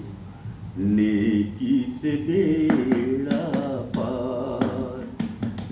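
A man singing unaccompanied, holding long notes with a wavering pitch after a short pause at the start. Sharp taps sound along with the singing in the second half.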